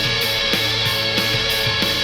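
Heavy rock music, distorted electric guitars over a drum beat with a hit about every 0.6 seconds, played back through a small Bluetooth speaker.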